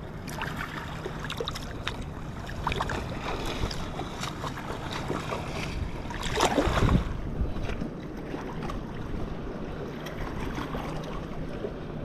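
Small waves lapping at a rocky shoreline, with wind on the microphone and light clicks of fishing line being handled. A louder burst comes about six and a half seconds in.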